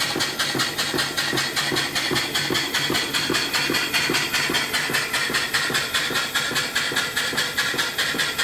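Antique steam mill engine, about 1890, running on steam with a rapid, even beat and a steady hiss of escaping steam.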